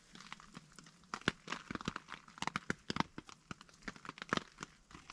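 Light rain pattering on a nylon tarp and tent fly: irregular sharp taps of drops, several a second, with some crinkling of the fabric.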